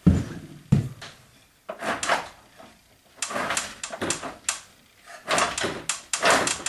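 Two heavy knocks close together, then bursts of scraping and clattering, the sound of heavy parts being shifted and handled in a workshop.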